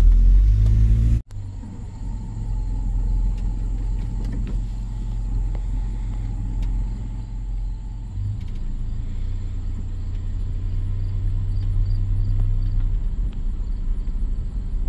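A pickup truck's engine and road rumble while driving, a steady low drone. A louder stretch in the first second cuts off abruptly.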